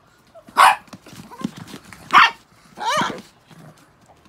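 Chihuahuas barking: three short, high, sharp barks about a second and a half apart, the last one longer and more of a yelp.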